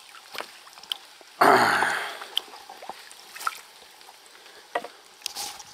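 Water splashing and dripping as a hooked carp is drawn in at the bank, with one louder splash about a second and a half in and small clicks and drips around it.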